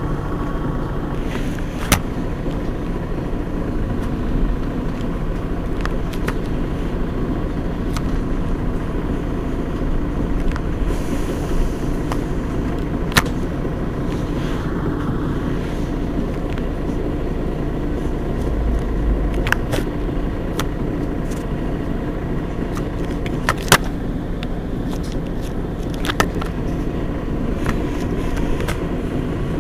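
Mercedes-Benz Citaro G C2 articulated bus engine idling steadily, with a few sharp clicks now and then.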